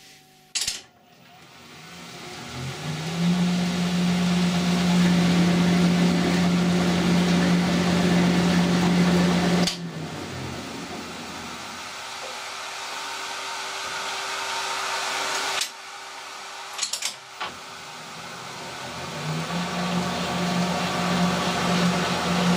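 Colchester metal lathe switched on with a click, spinning up to a steady hum while the tool takes a screw-cutting pass, then dropping abruptly to a quieter run. After a few clicks of the controls it spins up to full speed again near the end: metric threading done by running the lathe back and forth.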